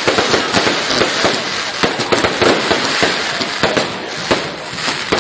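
Fireworks from a burning castillo, a pyrotechnic tower, going off close by: a dense crackle of rapid sharp pops over a steady hiss of spraying sparks.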